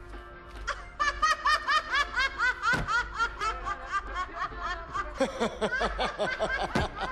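A woman laughing loudly and heartily in quick, rhythmic bursts, starting about a second in. A second, deeper laugh joins about five seconds in.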